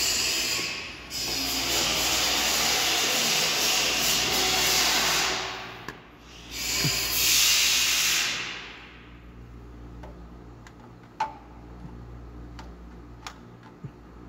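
Loud rustling and scraping of a work sleeve and hands moving right against the microphone while a part is fitted on an engine, dropping away about eight seconds in. After it come a few sharp, irregularly spaced metal clicks.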